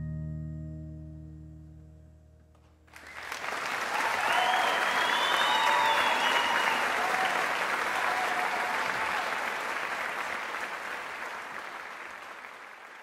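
A Bashkin acoustic guitar's final chord, in CGCGCD tuning, rings out and dies away over about three seconds. Then audience applause starts suddenly and slowly fades.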